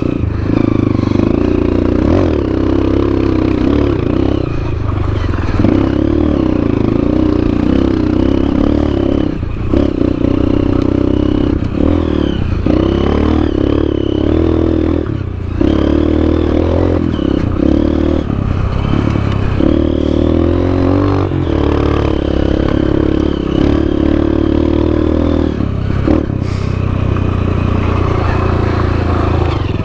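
Honda CRF230F's air-cooled single-cylinder four-stroke engine running under way, its pitch rising and falling with the throttle. It drops off briefly several times as the throttle is rolled off or a gear is changed.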